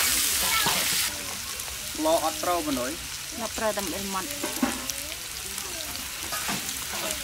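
Food frying in a wok over a wood fire: a loud sizzle for about the first second, then quieter frying with a metal spoon scraping and clicking against the wok as it is stirred. A voice is heard in the background around the middle.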